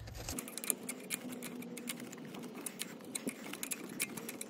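Light, irregular metallic clicks and scrapes of pliers working a worn front brake pad out of a Chevy Silverado's brake caliper.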